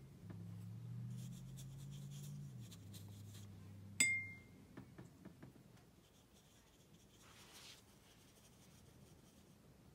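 A watercolour brush working wet blue paint on paper, heard as faint soft rubbing and small ticks. For the first few seconds a low hum shifts in pitch. About four seconds in comes a single sharp clink with a brief high ring.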